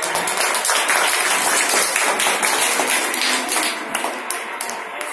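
Crowd applauding: many hands clapping at once, easing off slightly near the end.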